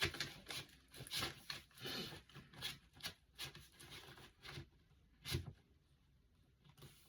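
Handling noise from unpacking records: irregular rustling, crinkling and light taps, about a dozen in all, with a brief lull near the end.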